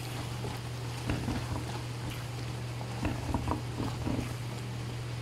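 Wooden spatula stirring okra and chicken in tomato sauce in a non-stick pan, with short scrapes and light knocks against the pan about a second in and again around three to four seconds in, over the food's sizzle and a steady low hum.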